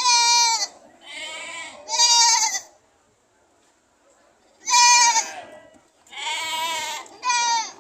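Goats bleating: about six loud, wavering calls, three close together, then a pause of nearly two seconds, then three more.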